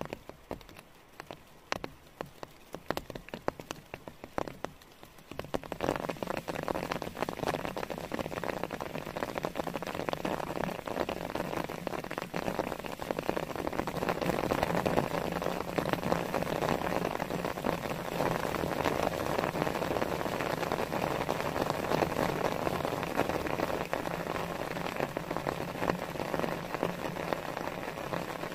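Rain falling on forest foliage and grass. It starts as a light patter of scattered drops, then about five seconds in it turns into a dense, steady heavy downpour.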